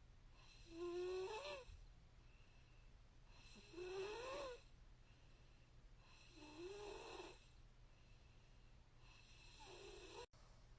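A woman snoring in her sleep: four snores about three seconds apart, each one rising in pitch as she breathes in.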